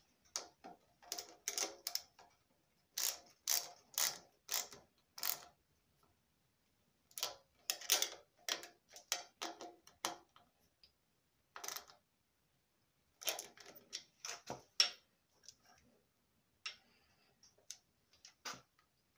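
Metallic clicks and rattles of a CDI ignition module, its bracket and wiring connectors being handled and fitted to a motorcycle frame, coming in short clusters of sharp clicks with quiet gaps between.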